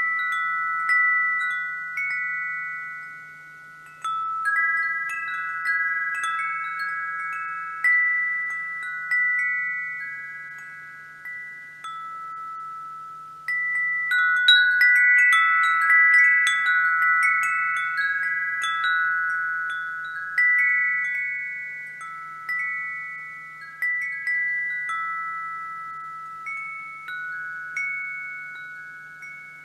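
Wind chimes ringing: a few clear high notes struck one after another at uneven intervals, each fading away slowly. A busier cluster of strikes comes about halfway through.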